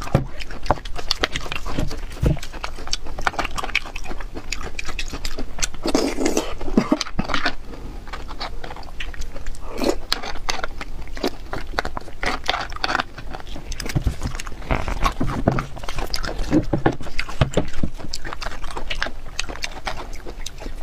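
Eating sounds of spiced beef bone marrow: irregular chewing, biting and mouth smacks, with a metal spoon scooping marrow from the bones.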